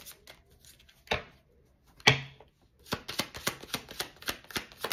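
A deck of reading cards being shuffled by hand: a loose run of soft card flicks and clicks, one louder knock about two seconds in, then a quick patter of cards striking together, about six a second, over the last two seconds.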